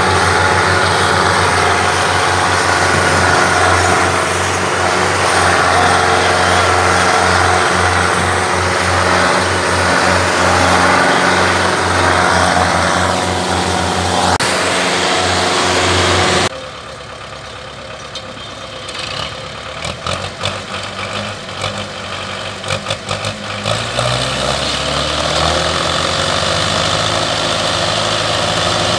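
Belarus 510 tractor's diesel engine running hard under load as it hauls a heavily loaded sugarcane trolley. About halfway through it gives way abruptly to a quieter stretch of irregular clicks and knocks. Then engine sound comes back and rises in pitch before settling steady.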